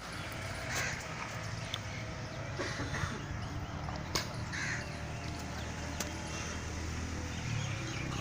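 Three short, harsh calls a second or two apart, over a steady low hum and a few sharp clicks.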